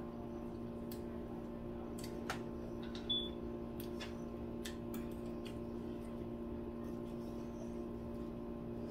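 Metal cutlery clicking now and then against plates and foil trays while people eat, a dozen or so light clicks with one brighter clink just after three seconds, over a steady low hum.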